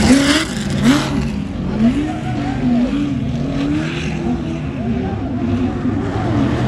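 Class 1 off-road race buggy's engine revving up and falling back again and again, about once a second, as the car accelerates and lifts off. A few short sharp knocks come in the first two seconds.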